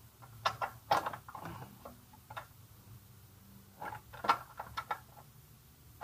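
Short metallic clicks and light knocks in a few small clusters as the rear axle is worked through the chain adjuster on a Honda CB300R's swingarm, lining the axle up with the adjuster.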